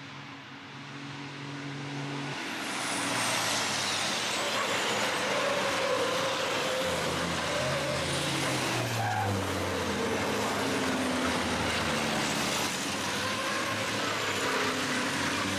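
A pack of racing trucks' turbodiesel engines running hard as they approach and pass, growing louder over the first few seconds and then holding steady, with one engine's note dropping about halfway through.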